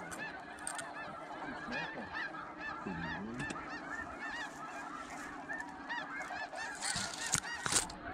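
Snow geese calling: a dense chorus of many overlapping high honks that does not let up. A few sharp clicks or rustles near the end.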